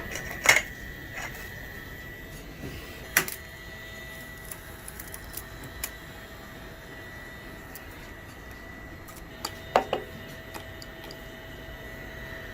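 3D printer at work: a steady high whine from its stepper motors, with light ticking and three sharper clicks spread through.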